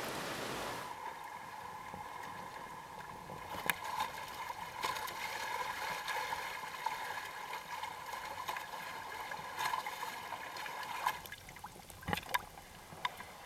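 Ocean surf noise that cuts off about a second in. Then water lapping and trickling against a sailing kayak's hull as it moves, with a steady faint tone and occasional sharp knocks.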